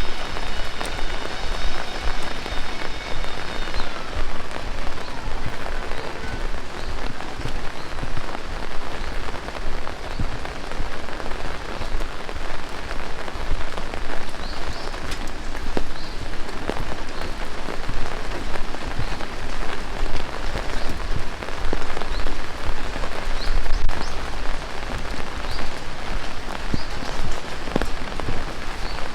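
Heavy rain falling steadily, a dense wash of water with countless individual drops ticking and splashing on surfaces close by. A faint steady hum fades out about four seconds in.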